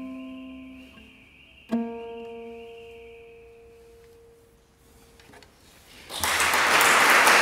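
Classical guitar: a final chord struck about two seconds in, left to ring and die away. Then an audience breaks into applause about six seconds in, much louder than the guitar.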